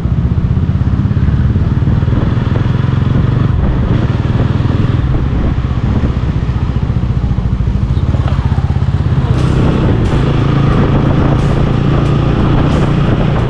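TVS Ronin motorcycle's single-cylinder engine running steadily under way, with road noise.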